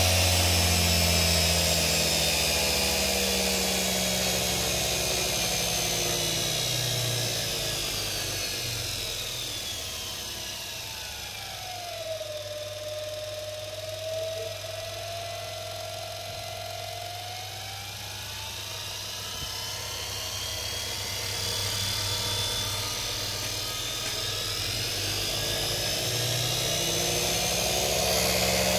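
Motor-driven dynamo test bench spinning a Jawa/ČZ dynamo, its whine gliding steadily down in pitch and getting quieter over about twelve seconds, holding low for several seconds, then rising back up in pitch and loudness near the end as the dynamo's speed is lowered and raised again.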